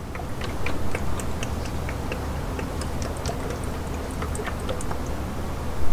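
Engine oil pouring from a plastic jug through a funnel, with irregular small ticks and glugs as air bubbles back into the jug, over a steady low hum.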